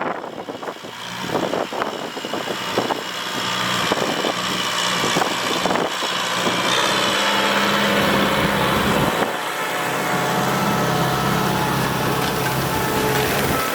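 Tractor engine running steadily, with scattered knocks and clatter in the first few seconds and a brief dip a little past the middle.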